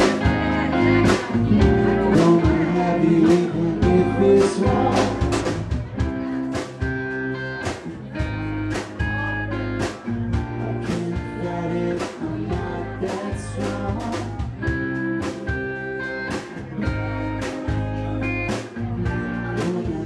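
Live rock band playing: electric guitars and electric bass over a drum kit keeping a steady beat.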